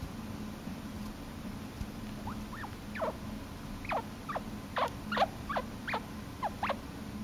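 Baby chinchilla peeping while dozing off: about a dozen short squeaks, each falling sharply in pitch, coming in a loose run from about two seconds in.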